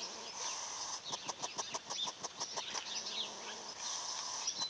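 An angry hedgehog, curled up with its spines raised, snorting and huffing in a rapid run of short puffs, about seven a second, from about a second in to nearly three seconds in. These are the defensive snorts of an alarmed hedgehog.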